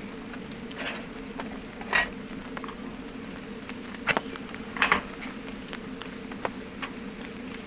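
A Feuerhand hurricane lantern being handled: a few short metallic clicks and clanks about 1, 2, 4 and 5 seconds in, over a steady low hum.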